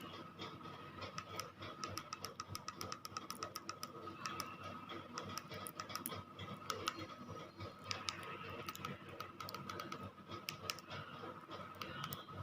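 Irregular light clicks, several a second in places, over a faint steady high-pitched hum.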